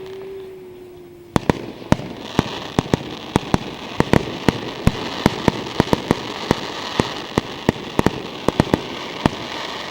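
Fireworks display: a falling whistle dies away in the first second, then from about a second and a half in comes a rapid run of sharp bangs and crackle, several a second, over a steady hiss.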